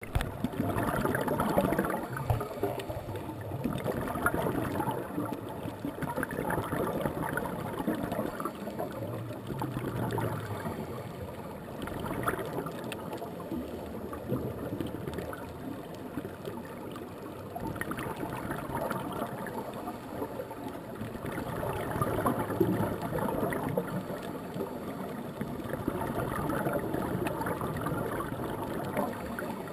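Scuba diver's exhaled air bubbling from a regulator: gurgling bursts that swell and fade every four to five seconds, over a steady underwater hiss.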